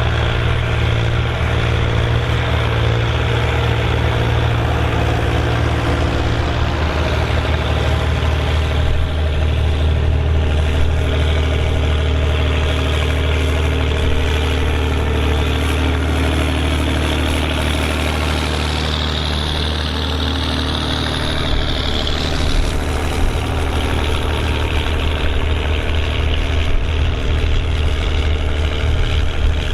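Volvo BM 650 tractor's diesel engine running steadily under load while pulling a plough, a deep, even drone throughout.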